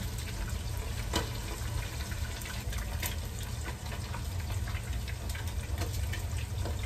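Fish frying in hot oil in a pot: a steady sizzle with scattered sharp pops of spattering oil.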